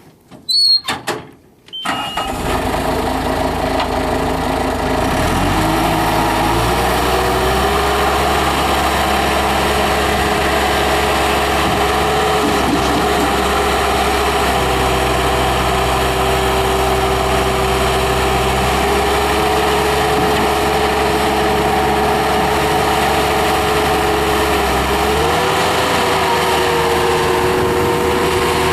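1998 Bobcat 863 skid steer's 73 hp Deutz turbo diesel starting up about two seconds in, after a few short clicks, then running steadily. Its speed rises a little a few seconds after starting and again near the end.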